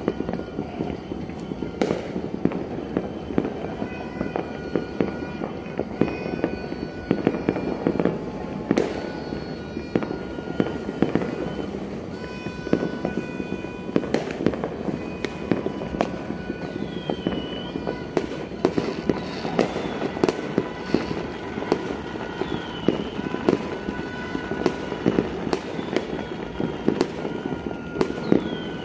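Many fireworks and firecrackers going off at once: a dense, continuous crackle of pops and bangs, with a few short high tones and falling whistles over it.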